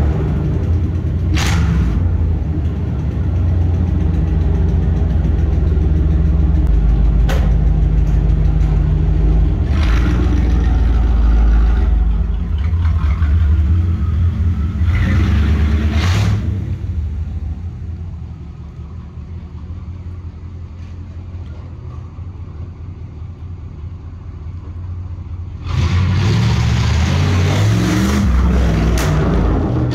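1991 Camaro RS's L03 305 V8 with throttle-body injection, breathing through a straight-through stainless exhaust with no catalytic converter or silencers, revved repeatedly with several sharp exhaust pops. It drops to a quieter idle a little past halfway, then comes back in loud with rising revs about four seconds before the end.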